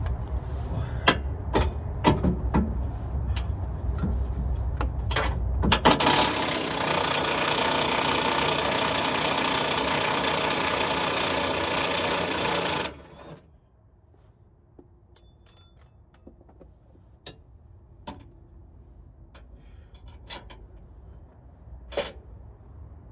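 A cordless power wrench runs steadily for about seven seconds, from about six seconds in, then stops abruptly: a bolt being run out during a 4L60E transmission removal. Before and after, scattered sharp clicks and knocks of hand tools and metal parts.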